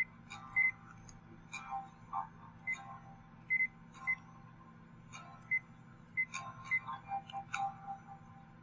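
Sony Vaio jog dial software's scroll and click sound effects as the remote's jog dial is turned and pressed: a run of short electronic blips and clicks at an irregular pace.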